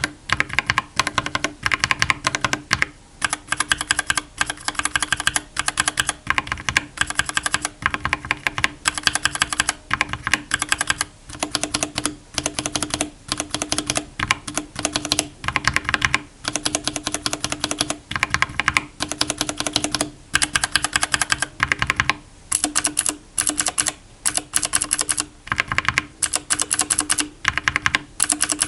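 Mechanical keyboard typing on bare Gateron switches with the keycaps removed, on a Dark Project KD87A. The keys are pressed in fast runs of clicking keystrokes, with short pauses every second or two. This is a sound test comparing lubricated and unlubricated switches.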